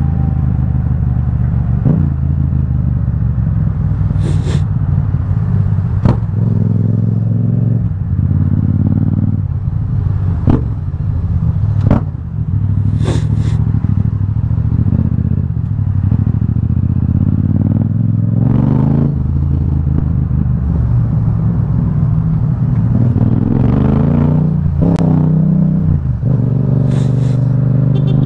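Yamaha XSR700's parallel-twin engine running loud through an Akrapovic carbon full-system exhaust, its pitch rising and falling as the bike accelerates, shifts and slows in traffic, with a few brief sharp cracks along the way.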